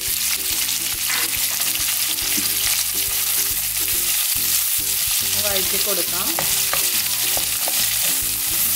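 Sliced onions and green chillies sizzling as they fry in hot sunflower oil in a metal kadai, stirred with a wooden spatula that scrapes and knocks against the pan.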